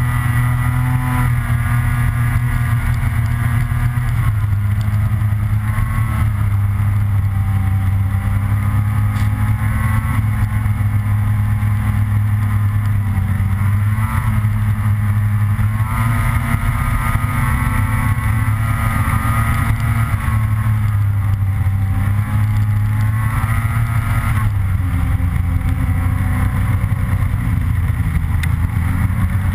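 Snowmobile engine running steadily at trail speed, heard from on board, its pitch wavering a little up and down with the throttle.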